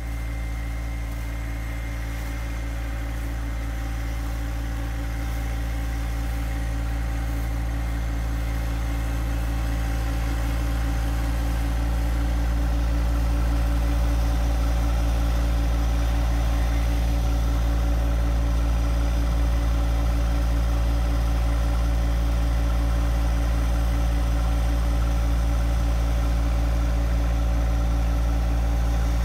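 John Deere 2025R compact tractor's three-cylinder diesel engine running steadily. It grows gradually louder over the first dozen seconds or so, then holds steady.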